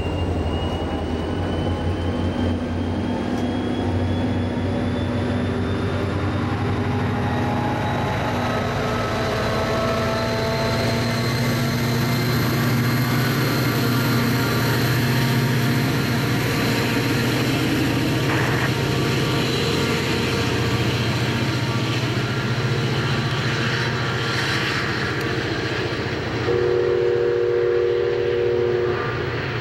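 NJ Transit push-pull commuter train passing: Comet V coaches rolling by with steady wheel and rail noise and a faint, slowly rising whine, then the GP40PH-2B diesel locomotive pushing at the rear goes by with its engine running. Near the end a chime-like train horn sounds for about two and a half seconds.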